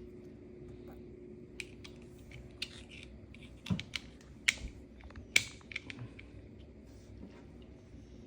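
Small plastic kit parts clicking and tapping as the pieces of a key are handled and set into place: a scattering of light clicks, with a few sharper ones in the middle.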